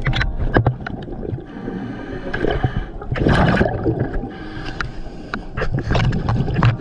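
Underwater sound of a scuba dive: a diver's regulator breathing, with bubbling gurgles of exhaled air and scattered clicks and knocks. The loudest gush of bubbles comes a little after three seconds in.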